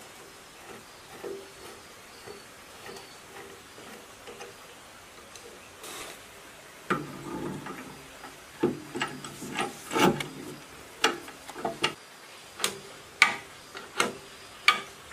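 Hand tools and metal parts clicking and knocking as an electric starter motor is fitted and bolted onto a single-cylinder diesel engine by its flywheel ring gear. Faint, even ticking at first, then from about seven seconds in sharper metal clanks and clicks, one or two a second.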